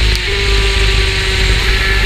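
Two-stroke superkart engine running hard at high revs, its note dipping briefly at the start and then climbing slowly.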